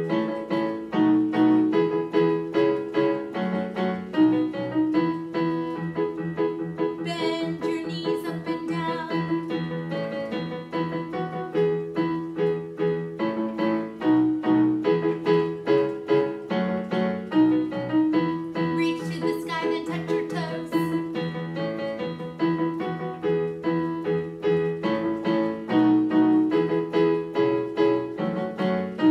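Yamaha digital piano playing a vocal warm-up accompaniment: a repeating pattern of steady notes and chords.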